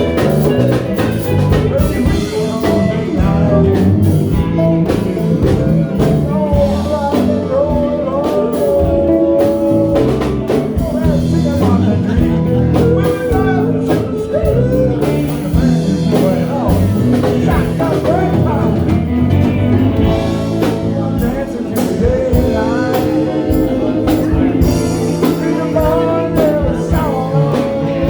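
A band playing a blues-rock number with a steady beat, a voice singing over electric guitar.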